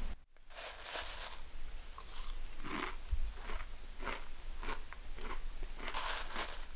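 Cornflakes being chewed close up: a run of irregular crunchy bites, starting about half a second in after a short silence.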